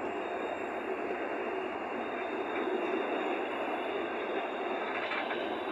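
Freight wagons rolling past on the rails: a steady, even noise of steel wheels running on track.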